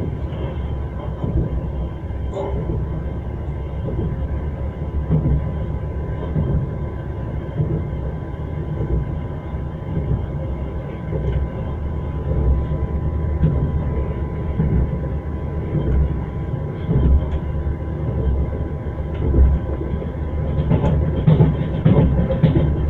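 Train wheels clattering over the rails, with knocks at irregular intervals over the steady rumble of a moving train.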